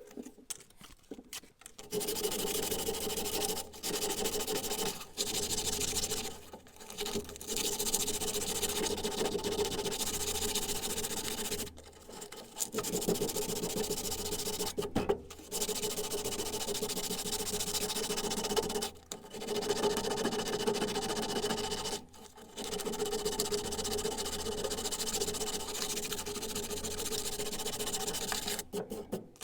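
Steady abrasive rasping on the steel of an old hammer, in stretches of a few seconds split by short breaks, with a constant low tone under it.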